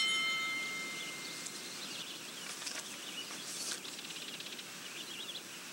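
A single chime-like ring at the start that fades away over about a second and a half. Then soft outdoor nature ambience with scattered bird chirps and a short rapid insect-like trill.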